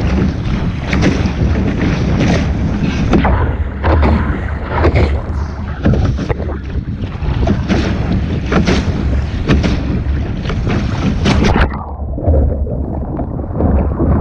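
Wind buffeting the microphone on a sailing boat, loud and gusting unevenly over the rush of water. The hiss dulls for a couple of seconds near the end.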